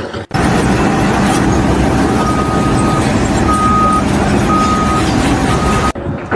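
Heavy vehicle engine running loudly with its reversing alarm beeping about once a second, four beeps starting about two seconds in. The sound starts and cuts off abruptly.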